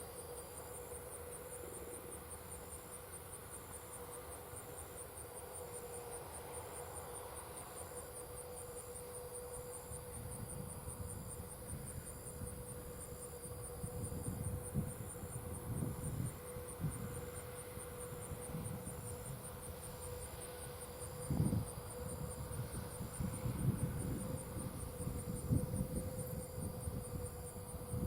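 Crickets or similar field insects chirping in a fast, even, high-pitched pulse, over a steady hum. From about ten seconds in, low rumbling gusts come and go, the loudest about twenty-one seconds in.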